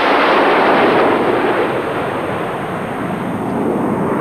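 Jet noise from a formation of nine BAe Hawk trainers flying low overhead: a loud, dense rushing noise that is strongest in the first second and eases slightly as they pass.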